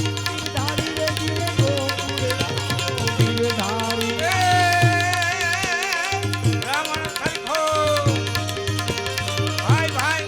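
Instrumental interlude of Gujarati devotional folk music: a tabla rhythm under a melody, over a steady low drone. About four seconds in, a wavering note is held for a couple of seconds.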